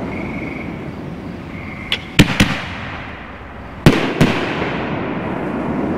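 Holy Nishiki canister shells bursting overhead: two pairs of sharp bangs, the first about two seconds in and the second about four seconds in.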